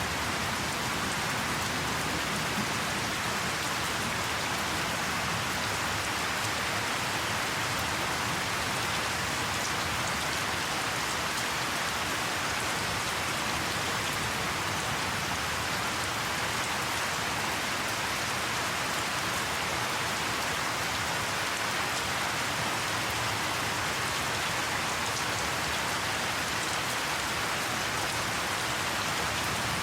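Heavy rain falling steadily, an even hiss of drops that holds at one level throughout.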